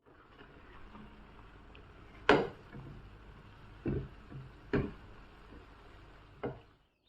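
Four sharp knocks of kitchen items being handled, spaced unevenly over a few seconds, the first one the loudest.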